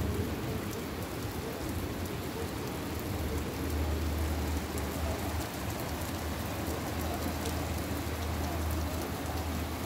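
Steady heavy rain falling during a thunderstorm, with fine drop ticks over an even hiss. A steady low rumble runs underneath.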